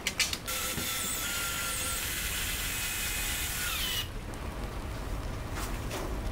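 Small cordless electric screwdriver running steadily for about three and a half seconds, driving a screw through a 3D-printed decorative panel into a heat-set threaded insert, then stopping suddenly. A few clicks come just before it starts and again near the end.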